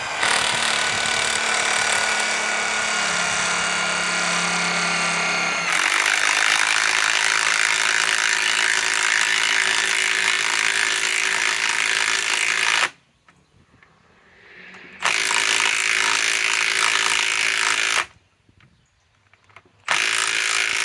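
Milwaukee M12 Fuel Stubby Gen 1 3/8-inch impact wrench driving a lag screw into a log. It runs for about thirteen seconds, turning harsher and louder about six seconds in. After a short pause it gives a burst of about three seconds, then another short burst near the end.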